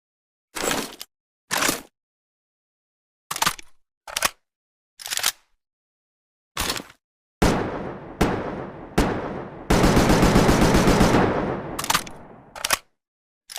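Makeshift AKM assault-rifle sound effect: six single shots, each cutting off to dead silence. Then, from about seven seconds in, shots with long echoing tails lead into a rapid full-auto burst of about two seconds, followed by two more single shots.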